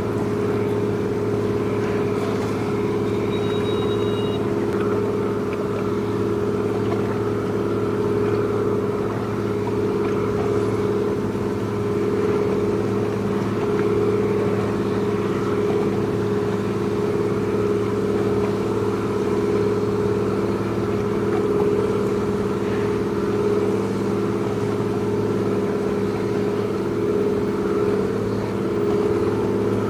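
A ship's engine running steadily, an even low hum at a constant pitch with no change in speed.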